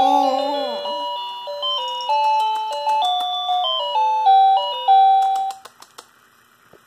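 Electronic toy piano playing a simple beeping tune of single notes, opening with a brief sung phrase; the tune stops about five and a half seconds in, followed by a few faint taps.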